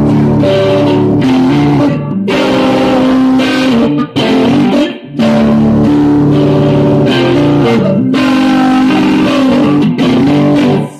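Electric guitar played loud in an instrumental passage, ringing chords that change every second or so, with short breaks about four and five seconds in.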